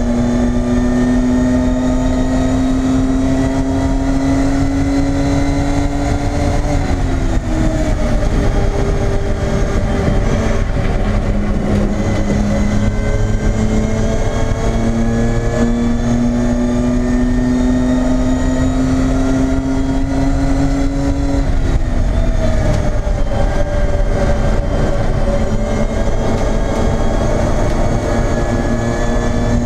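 BMW E30 race car's engine heard from inside the stripped cabin, running hard on track. Its note climbs slowly, falls away sharply about seven seconds in and again after about twenty-two seconds, then climbs again.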